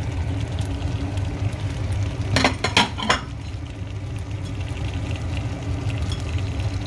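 A quick run of three or four metallic clinks of a utensil against a cooking pot, about two and a half seconds in, over a steady low hum.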